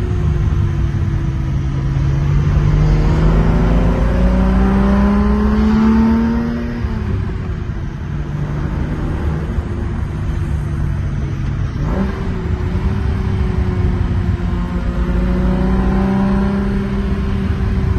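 Classic Datsun Z car's inline-six engine pulling the car along, heard from the driver's seat: the engine note rises under throttle, drops away about seven seconds in, and climbs again from about twelve seconds, with a brief knock just before the second climb.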